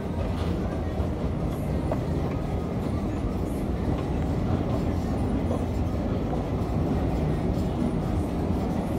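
Escalator running, a steady low mechanical rumble.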